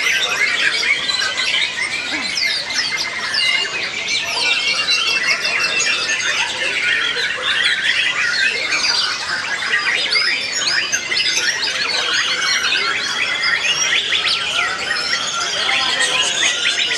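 White-rumped shamas singing at once: a dense, continuous jumble of quick whistles and chirps, many short rising and falling notes overlapping without a break.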